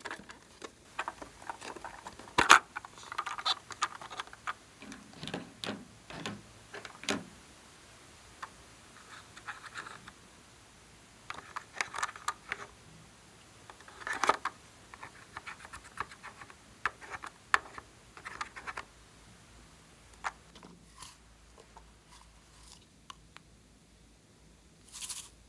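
Plastic toy makeup cases being handled: sharp clicks and taps of the cases opening and closing, and short scrapes of a plastic spatula scooping eyeshadow out of the palette. The sounds come one at a time, with short quiet gaps between them.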